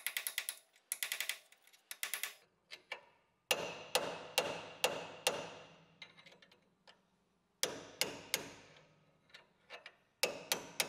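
A hammer strikes a steel drift to drive the old kingpin bearing race out of a Nissan Patrol GU front swivel hub ball, which has been heated to ease it out. Sharp metallic blows with ringing come in bursts of several quick strikes separated by short pauses.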